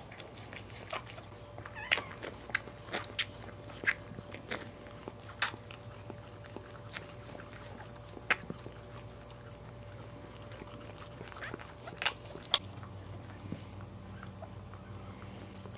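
Cairn terrier mother licking her newborn puppy clean just after its birth: irregular smacking, mouthing clicks, mostly about a second apart, that thin out near the end, over a faint steady hum.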